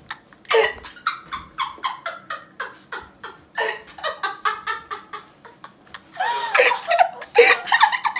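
Two women laughing hard: a run of quick, breathy ha-ha pulses, several a second, that turns into louder, higher-pitched shrieks of laughter about six seconds in.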